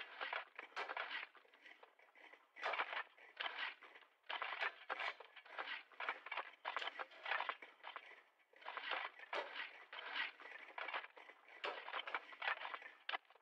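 Shovels digging at a distance: irregular, overlapping scrapes of the blades cutting in, several a second, coming in clusters with short lulls.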